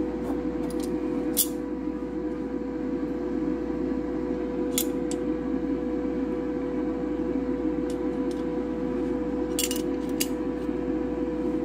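A metal spoon clinking a few times against a ceramic plate while spreading margarine over boiled asparagus, with a small cluster of clinks near the end. Under it runs a steady machine hum.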